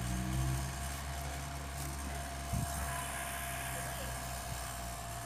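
Small electric blower fan of a wood-burning pyrolysis camp stove running steadily, forcing air up into the fire from below: a low hum with a faint steady whine over it. A soft knock about two and a half seconds in.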